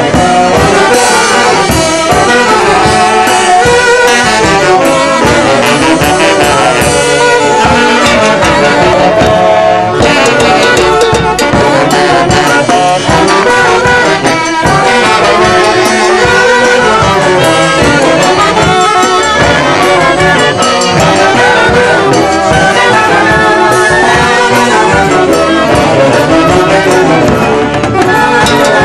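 Andean orquesta típica playing live: a line of saxophones carries the melody together over the rest of the band, loud and unbroken.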